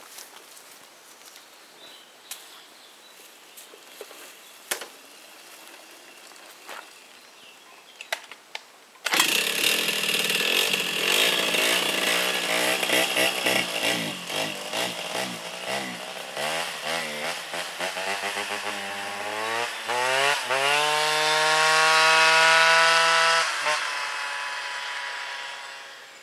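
Two-stroke 50cc engine of an MBK 51 moped fitted with a Doppler ER1 kit, a Dellorto PHBG 15 mm carburettor and a Doppler air box, jetted too lean, passing by under throttle. It cuts in suddenly about nine seconds in and wavers in pitch as the throttle changes. It then climbs to a high, steady rev, drops off near the end and fades away.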